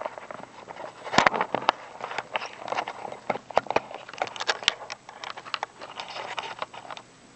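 Irregular sharp metallic clicks and scrapes of small tools working on a Wilka euro lock cylinder, prying its retaining C-clip off the back of the core; the clicking stops near the end.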